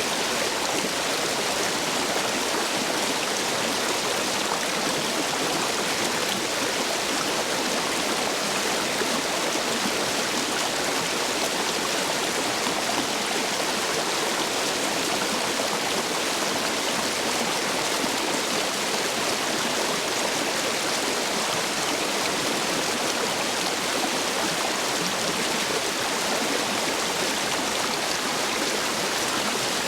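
Stream water rushing steadily through a row of stepping stones, running full after heavy rain.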